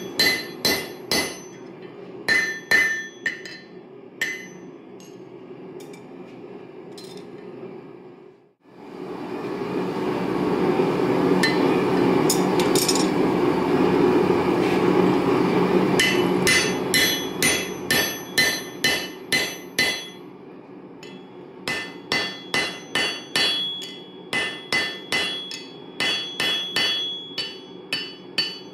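Hand hammer striking a steel punch driven into a red-hot railroad-spike hammer head on an anvil, punching the eye. The blows come in bursts, about two a second, each with a bright anvil ring. In the middle the hammering stops while a steady rushing noise swells for several seconds, and then the blows start again.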